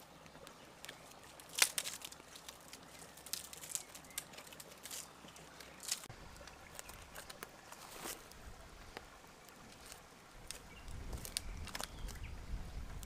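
Knife cutting raw lamb away from the rib bones on a flat stone, with scattered sharp clicks and short scrapes as the blade meets bone and rock. A low rumble comes in near the end.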